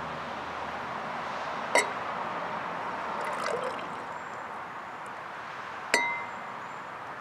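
Yeast mixture poured from one glass into a tall glass of hydrogen peroxide and dish soap, adding the catalyst for elephant toothpaste. There are two sharp glass clinks, one about two seconds in and a louder, ringing one near the end.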